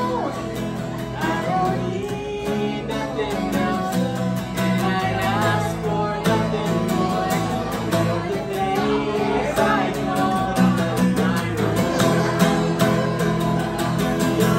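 A live song: a woman sings into a handheld microphone over a strummed acoustic guitar.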